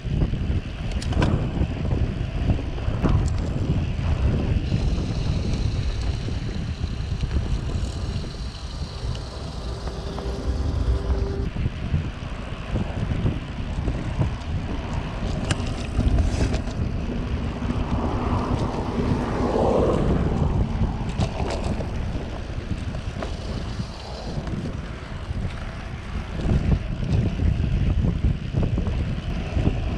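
Wind buffeting the microphone of a bicycle-mounted camera as the bike rides along at speed, a steady low rumble.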